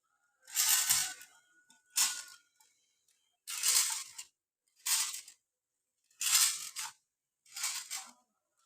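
Repeated cutting strokes into a coconut tree, six sharp strokes about one every second and a quarter.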